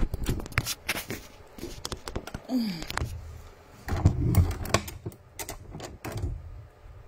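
Handling noise from a phone held in the hand: irregular clicks, taps and rubbing close to its microphone, with a few low thumps about four seconds in.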